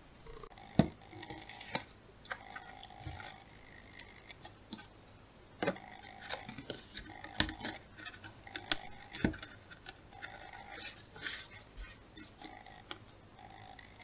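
Paper plates and a plastic glue bottle handled on a tabletop: scattered light taps, clicks and rustles as plates are set down and pressed together.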